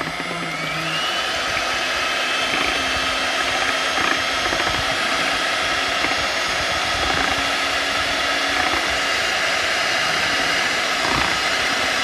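Electric hand mixer running steadily, its twin beaters whipping fresh cream in a bowl; the motor's whine climbs in pitch about a second in, then holds steady.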